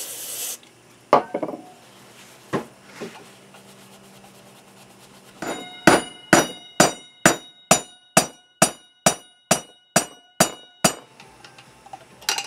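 Hammer blows on a screwdriver set against a motorcycle front wheel bearing in its hub, trying to drive the old bearing out. After a few scattered knocks, about a dozen steady metallic blows come at roughly two and a half a second, each with a short ring, over the second half.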